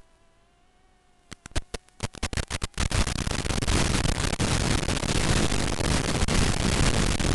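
Static from an analog FPV video receiver as the quadcopter's video signal breaks up: a run of sharp crackles about a second in, merging into a continuous loud hiss.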